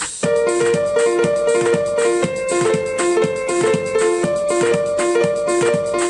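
Music played through a Blaupunkt BT51 8 W portable Bluetooth speaker: a repeating keyboard melody of short, evenly spaced notes over a steady beat. The melody comes in just after the start, taking over from a drum-machine beat.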